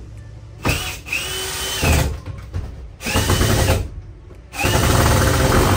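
Cordless drill driving screws into wood in three bursts. Each burst starts with a rising motor whine, and the last one is the longest.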